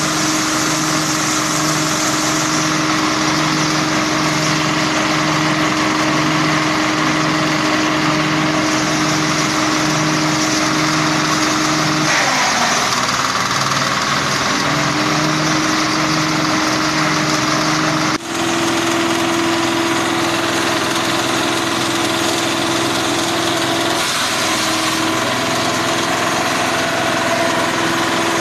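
Small single-cylinder diesel engine running steadily, driving a grass-chopper rotor, with a regular pulsing throb. The pitch sags briefly about twelve seconds in, as under load, and after a sudden break about eighteen seconds in the engine runs on at a slightly higher pitch.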